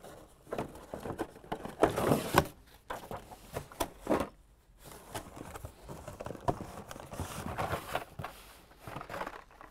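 Cardboard and blister-packed Hot Wheels cars on their card backs scraping and rustling as they are handled in a cardboard shipping case, with irregular taps and knocks.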